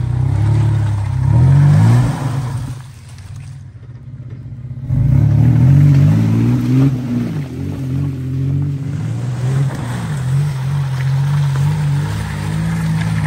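Mitsubishi Montero's engine revving in rising bursts as it works over rough off-road ground. It drops away for about two seconds a few seconds in, then revs up again and keeps running.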